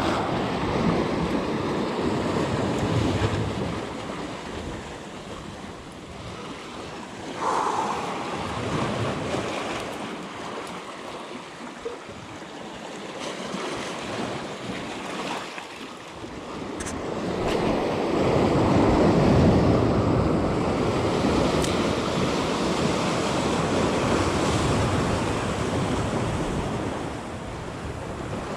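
Sea waves washing against a rocky shore, swelling louder near the start and again over several seconds in the second half, with wind buffeting the microphone.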